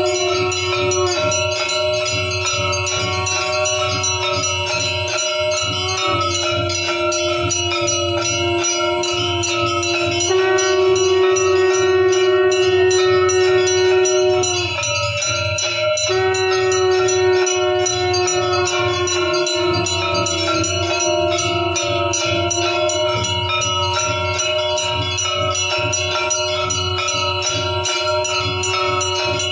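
Temple bells ringing continuously in a dense clatter during an aarti, over a long held tone that steps in pitch a couple of times and breaks off briefly about halfway through.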